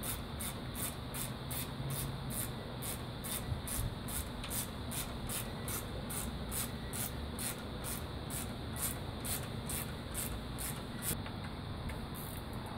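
Hand ratchet clicking in a quick, steady rhythm, about three strokes a second, as a long radiator mounting bolt is run in. It stops about eleven seconds in.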